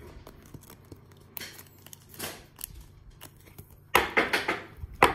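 A trading card slid into and handled in a hard clear plastic card case: soft plastic rustles and light clicks, then a louder run of plastic clacks and rustling about four seconds in.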